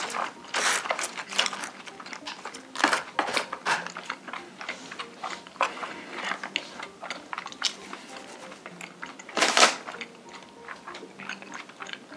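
Close-miked wet chewing and biting of braised pork, with short sharp clicks and scrapes of wooden chopsticks in plastic takeout trays and one louder noise about three-quarters of the way through. Quiet background music plays underneath.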